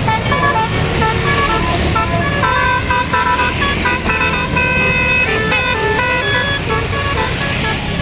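Bus telolet 'basuri' musical horn playing a quick tune of short stepped notes that hop up and down, over the bus's engine running.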